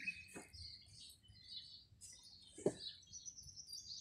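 Small birds chirping and trilling continuously, with two brief knocks, the louder one near three seconds in.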